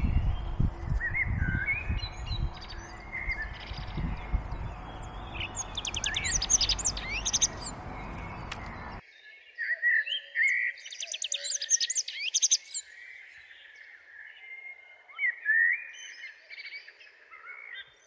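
Garden birds chirping and singing in short trills and calls, with wind rumbling on the microphone that stops abruptly about halfway through.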